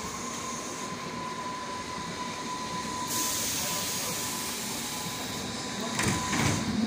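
Hamburg U-Bahn DT4 metro train running into a station, heard from inside the car. Its traction electrics whine at a steady pitch, which stops near the end. A hiss rises about three seconds in, and loud clattering knocks come just before the end.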